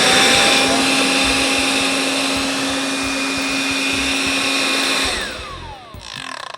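65-watt handheld car vacuum cleaner switched on, its motor whining up to speed and then running steadily with a rushing airflow. About five seconds in it is switched off and winds down with a falling whine.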